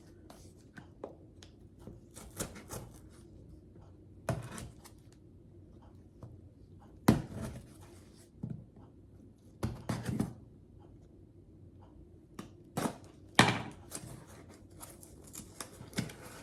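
A mail package being opened by hand: irregular scratching, rustling and tearing of packaging, broken by several sharp snaps or clacks, the loudest about seven seconds in and again near thirteen seconds.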